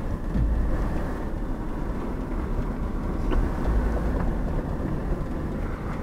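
Car driving, heard from inside the cabin: a steady low rumble of engine and road noise.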